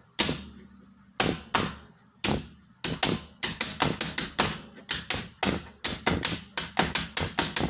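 Drums being played: sharp single hits, a few apart over the first two seconds, then a quicker run of strikes at about four a second.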